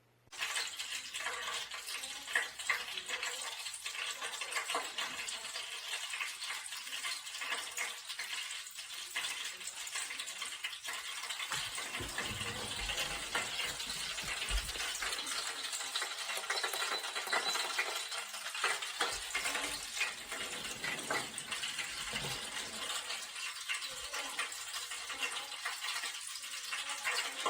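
A steady crackling hiss, like sizzling, with many fine clicks through it.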